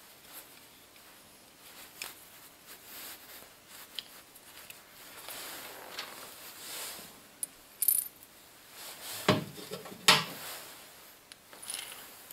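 Handling of small steel parts: light clicks and clinks of bolts, nuts and a steel tension arm with its idler wheel being fitted together, with a sharp high clink and then two louder knocks close together in the second half.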